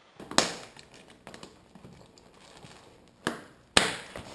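Motocross boots being put on and fastened: three sharp snaps, one near the start and two close together near the end, with smaller knocks and rustling of riding gear between, in a small echoey room.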